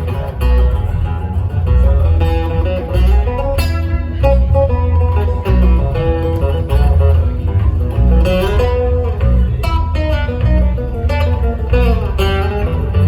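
Live band playing a blues tune: guitar picking melody lines over a loud, steady bass line.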